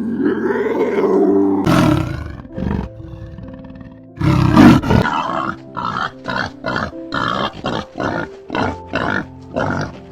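An animal roaring in a long call over the first two seconds, a loud burst about four seconds in, then a run of short grunting calls about two a second, over background music.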